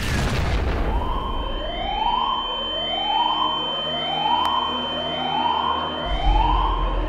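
Emergency siren sounding, its pitch sweeping up over and over, about once a second, over a steady high tone. It starts as the noise of a blast dies away, and a low rumble comes in near the end.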